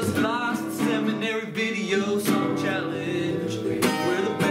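Acoustic guitar music, strummed chords with plucked notes.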